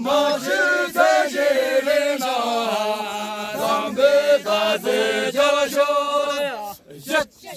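A group of men singing together in a chant-like style, one drawn-out melody that steps slowly up and down in pitch. The singing stops near the end and gives way to brief talk.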